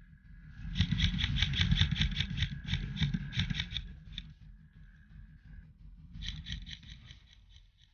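Airsoft electric gun firing on full-auto: rapid, evenly spaced clicks, about ten a second, in a burst of about three seconds starting about a second in, then a shorter burst about six seconds in.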